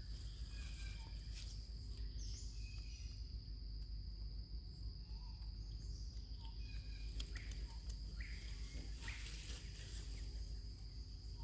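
Steady high-pitched insect drone, with scattered short chirps and a few brief rustles, the loudest about nine seconds in.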